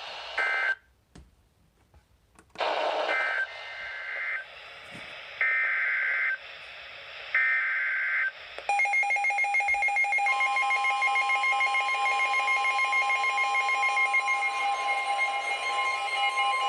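Emergency Alert System tones. The last short end-of-message data burst is followed by about two seconds of near silence. Then come three one-second bursts of the screeching digital SAME header, and a long, steady attention-signal tone starts about nine seconds in.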